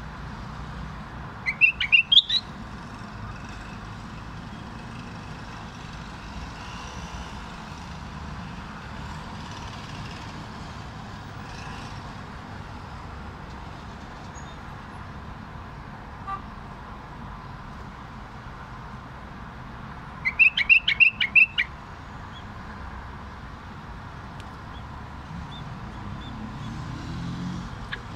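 Caged common bulbul singing two short bursts of song, each a quick run of loud notes, the first about two seconds in and the second about twenty seconds in, over a steady background of traffic hum.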